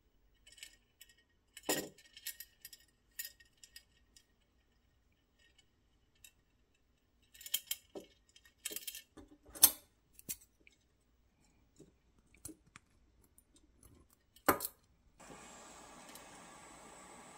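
Small metal chains on a toy dragline bucket clinking and jingling in irregular bursts as they are handled and hooked on. Near the end a sharp click is followed by the steady hiss of a small butane torch burning.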